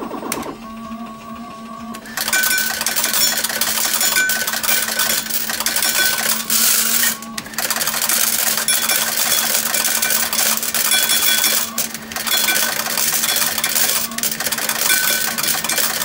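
Fruit machine paying out a £140 jackpot: a short electronic jingle, then from about two seconds in a long dense metallic clatter of coins running out of the hopper into the payout tray, broken by a few brief pauses.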